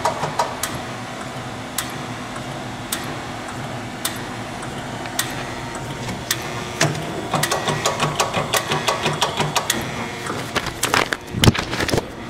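Hydraulic surface grinder running: a steady machine hum with a fast, regular mechanical clatter that grows stronger in the last few seconds, among scattered sharp clicks. A heavy thump comes near the end.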